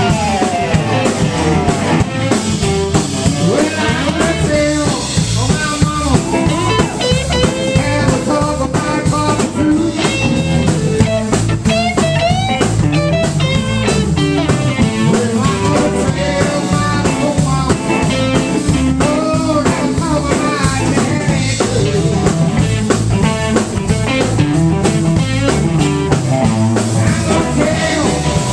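Live blues band playing: electric guitar lead lines with bent and sliding notes over bass guitar and drums.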